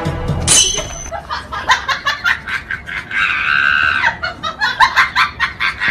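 Music cuts off about half a second in. Then high-pitched laughter follows in quick repeated bursts, with a held shrill note about three seconds in.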